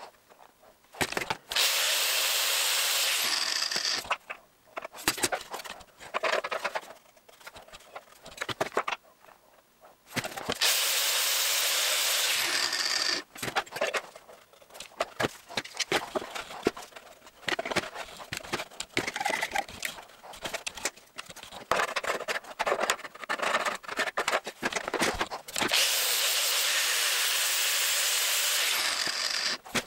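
Handheld angle grinder grinding metal down to fit, in three runs of a few seconds each with the motor starting and stopping, and handling clicks and knocks between the runs.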